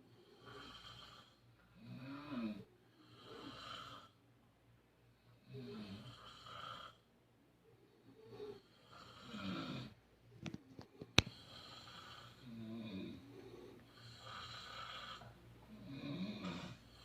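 Sleeping people snoring, one snore after another every second or two at an uneven pace. A sharp click about eleven seconds in is the loudest moment.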